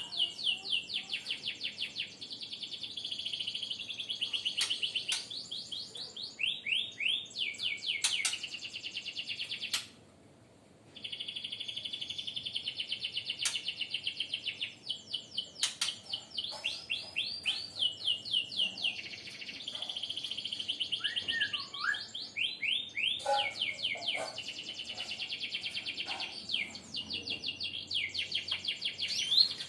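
Songbird singing: long, fast runs of repeated falling chirps, several a second. The song breaks off for about a second about a third of the way through.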